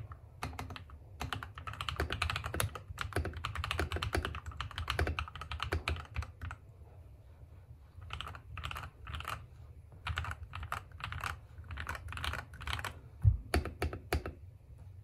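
Typing on a mechanical keyboard fitted with KTT Kang White linear switches lubed with Krytox 205g0, with foam and tape mods: a fast run of deep keystrokes, a brief lull about seven seconds in, then more typing. One loud low thud comes near the end.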